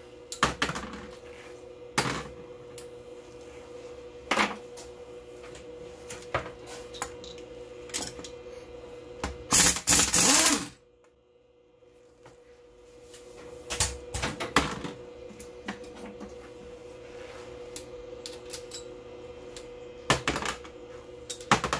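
A compact impact wrench hammering briefly on a cylinder head nut of a Suzuki Bandit engine, a loud rattle lasting about a second a little before halfway, among scattered metallic clicks and knocks of tools on the engine. A faint steady hum sits underneath.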